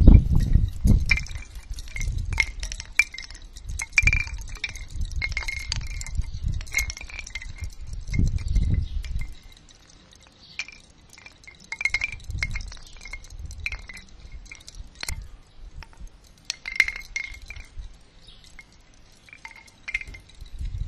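Bamboo wind chime swaying: hollow bamboo tubes knocking together at irregular intervals, each knock with a short ringing note. Wind rumbles on the microphone through roughly the first half and in short gusts later.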